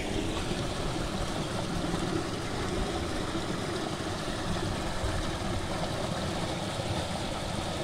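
Small stream's water rushing steadily over a rocky drop into a pool.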